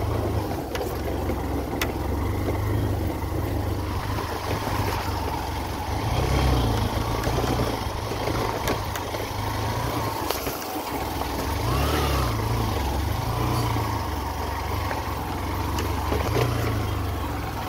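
Motorbike engine running at low speed on a rough dirt track, its note rising and falling a few times with the throttle, under a steady noise of wind and rubbing on the microphone, with a few sharp knocks.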